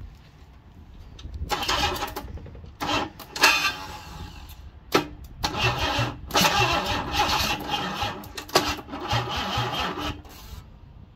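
Ford Cortina Mk4's 2.3 V6 being cranked over by its starter motor in several bursts, the longest about five seconds, trying to start; the owner thinks the starter motor is too weak to spin it fast enough.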